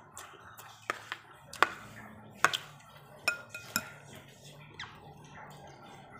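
A metal spoon clinking and scraping against a plate and bowl while eating, with several sharp clinks spread over a few seconds, some ringing briefly.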